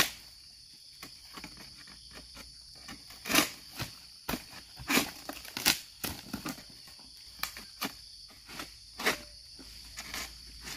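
Long-pole harvesting sickle cutting through oil palm frond stalks: a series of sharp tearing and scraping strokes, the loudest a few seconds apart. A steady high insect drone runs behind.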